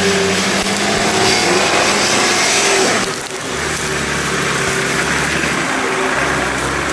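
Off-road 4x4's engine running under load as it drives through brush and mud close by, with branches and undergrowth cracking and crushing under the tyres.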